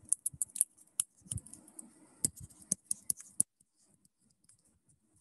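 Stylus tapping and scratching on a tablet while writing by hand: a run of sharp, irregular clicks that stops about three and a half seconds in, followed by only faint ticks.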